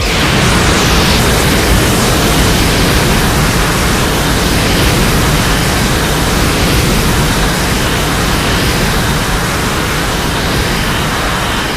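Edited Godzilla sound effect: a loud, dense rushing noise that cuts in suddenly and holds steady, with no clear pitch, fading away just after the end.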